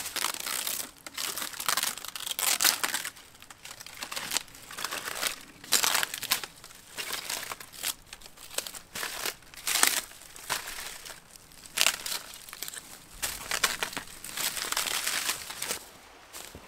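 Dry outer bark of a white birch being peeled and torn from the trunk by hand, crackling and crinkling in irregular bursts as the papery strips come away.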